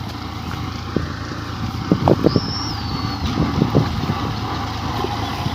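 Engine of wheat-harvesting machinery running steadily, with a few knocks and wind on the microphone. A brief high whistle-like note sounds about two seconds in.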